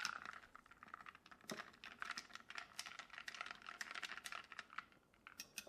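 Bar spoon stirring ice in a glass: a steady run of quick, light clinks and ticks of ice against the glass.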